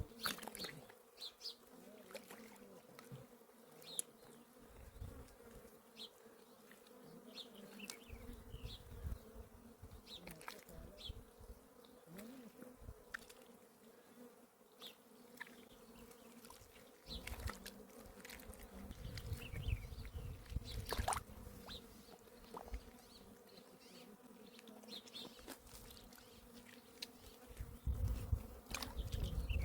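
Steady insect buzzing, with scattered light clicks and brief high chirps, and now and then a low rumble.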